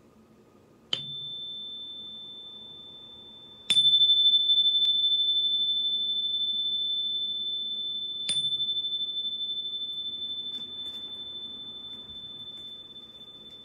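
A small high-pitched metal chime struck three times, about a second in, again near four seconds and near eight seconds. Each strike rings one clear tone that slowly fades, and the second strike is the loudest.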